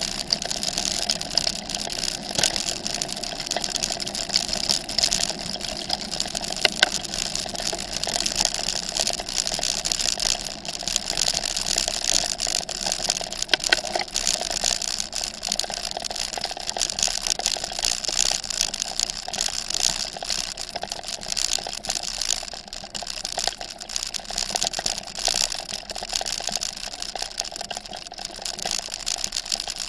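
Bicycle rolling over a gravel forest track: a steady crunch of tyres on loose gravel with small knocks and rattles, picked up by a camera mounted on the handlebars.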